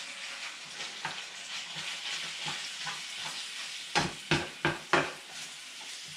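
Minced beef sizzling as it fries in a pan while it is stirred with a spatula. About four seconds in comes a quick run of four or five knocks of the spatula against the pan.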